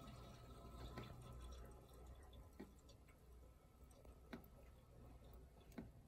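Faint trickling and gurgling of R-12 refrigerant still flowing through the dehumidifier's coils after the compressor has been switched off, easing off after a couple of seconds. Four soft ticks come about one and a half seconds apart.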